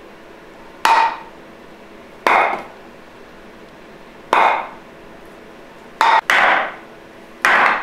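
Six sharp hammer blows on a socket and extension seated in a 4L60E transmission pump's stator shaft, driving the stator bushing, each blow with a brief metallic ring. The blows come at irregular intervals, two of them close together about six seconds in.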